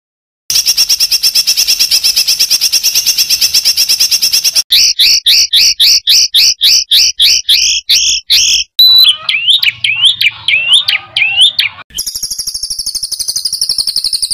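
Songbird singing the harsh, rapid-fire song used to tutor cage birds. It opens with a very fast rattling string of notes, then a run of loud repeated paired notes about three a second, then quick rising whistles, and ends with a fast high trill.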